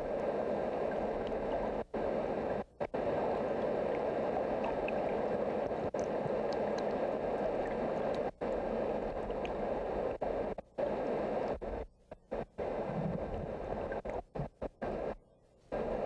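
Steady rushing of fast stream water. It cuts out briefly now and then, more often in the last few seconds.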